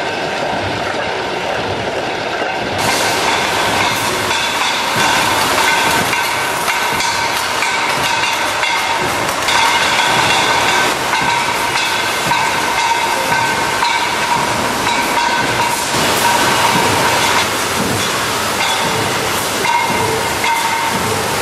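Concrete roof tile production line machinery running: a steady mechanical clatter and hiss with a high steady whine, getting louder and fuller about three seconds in.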